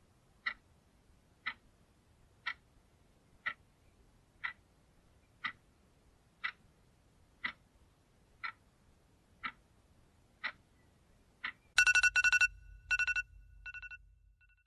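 A clock ticking with sharp, even clicks, one a second. About twelve seconds in, a smartphone wake-up alarm goes off: loud, fast, high electronic beeping in three short runs.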